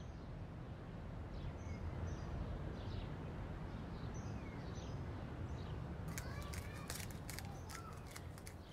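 Faint bird chirps over a steady low background hum, with a run of quick light clicks in the last few seconds.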